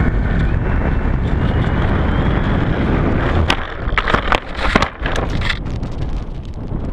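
Strong wind buffeting the GoPro's microphone on a model Spitfire, with a faint whine from the plane's motor rising slightly in pitch. About halfway through, a series of sharp knocks and rattles breaks in for a couple of seconds.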